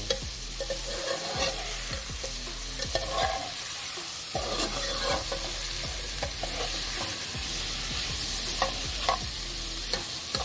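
Sliced onion, garlic, ginger and tomato sizzling in hot oil in a metal pot while being stirred, the spoon scraping and clicking against the pot again and again over a steady frying hiss.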